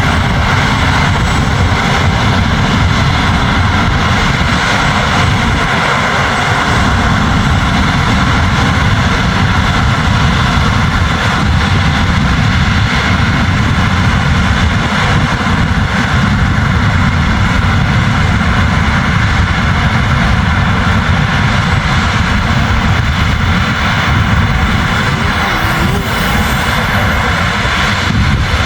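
New Holland CR10.90 combine harvester threshing barley: its diesel engine and threshing machinery run steadily under load, a continuous drone with a constant higher hum above it.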